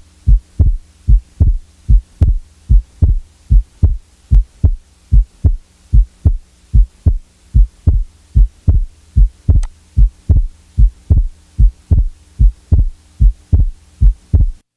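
Recorded heart sounds, heard as through a stethoscope: a steady beat of low thumps in lub-dub pairs, a little over one heartbeat a second, with a faint steady hum beneath.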